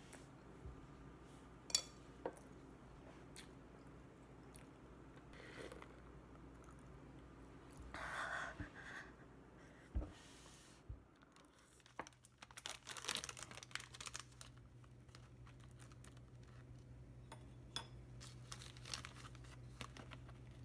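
A few light clicks of metal chopsticks on a plate, then, about halfway through, a couple of seconds of plastic cookie packaging crinkling and rustling as it is handled, with a few softer rustles after.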